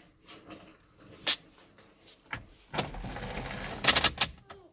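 Interior trim and fasteners of a Toyota 4Runner being refitted: a few sharp plastic clicks and knocks, a rush of noise for about a second, then a quick cluster of loud clicks near the end.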